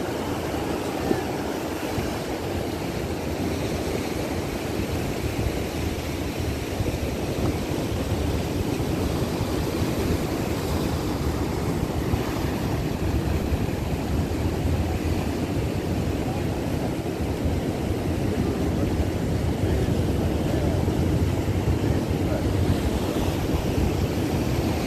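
Ocean surf breaking and washing against rocks and a pier, a steady rushing rumble.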